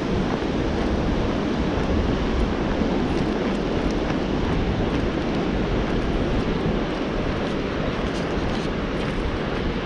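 Steady roar of rushing river water from Bracebridge Falls, an even rush with a low rumble that hardly changes in level.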